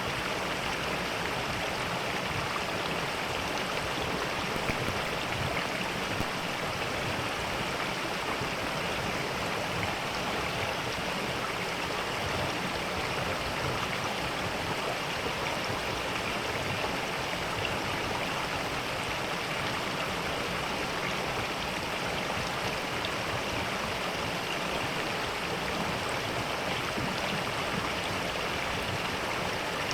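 Mountain valley stream flowing steadily, an even rush of water.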